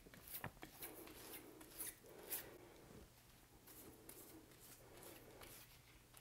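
Faint, irregular brushing strokes: a tint brush spreading hair dye over hair wefts on plastic sheeting, with a few light taps.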